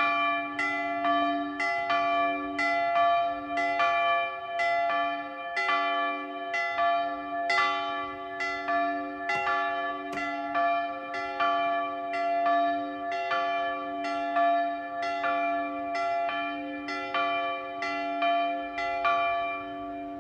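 Church bells of several pitches rung in a quick, even pattern, about two strikes a second, each stroke ringing on under the next.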